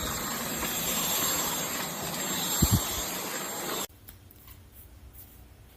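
Dyson V12 Detect Slim cordless stick vacuum running with a steady whir and a thin high whine, with two low knocks partway through. The sound stops abruptly about four seconds in.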